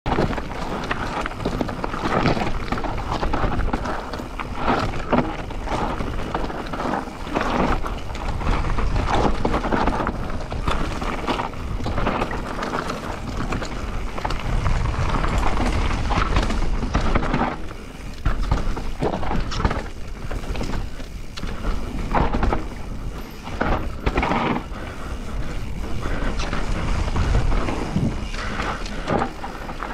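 Transition Spire enduro mountain bike descending a dry, loose dirt trail: tyres rolling and skidding over dirt and stones, with the bike clattering irregularly over bumps and wind rumbling on the microphone.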